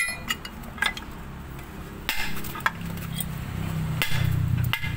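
A hand hammer striking a steel steering knuckle braced on a sledgehammer: a series of sharp, irregularly spaced metal-on-metal blows, pounding out a seized ball joint that is hard to remove. A steady low hum runs underneath from about two seconds in.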